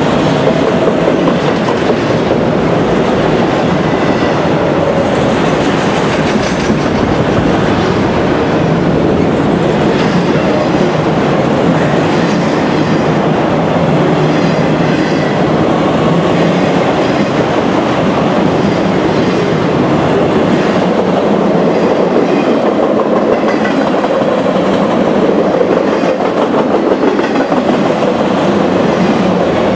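Freight train of auto rack cars rolling past close by: a loud, steady rumble of steel wheels on the rails with clickety-clack from the wheels.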